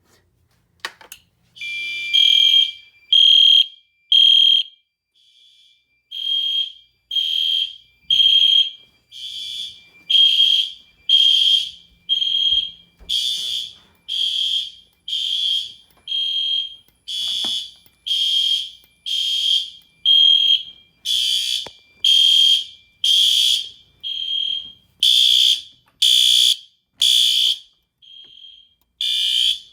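Fire alarm system horns start sounding about two seconds in, after a smoke detector test puts the system into alarm. They give short high-pitched blasts about once a second, with a steady tone under the first few.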